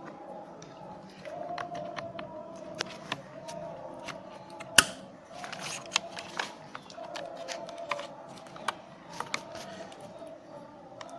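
Irregular clicks, taps and knocks of plastic and metal parts being handled and fitted together while an air-conditioning evaporator unit and its casing are put back in a car, with one sharper knock a little under halfway through.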